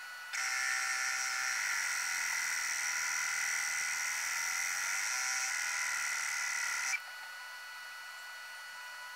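Laser engraver running as it engraves a logo: a steady whine made of several fixed tones, dropping suddenly to a quieter hum about seven seconds in.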